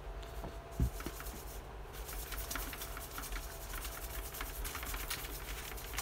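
Faint scattered clicks and taps, with one soft knock just under a second in, over a low steady room hum.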